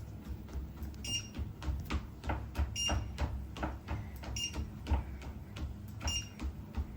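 A walking-pad treadmill running with a low hum from its belt and motor, and a child's quick footfalls thudding on the belt about three times a second. Short electronic beeps sound four times from the treadmill, about every second and a half.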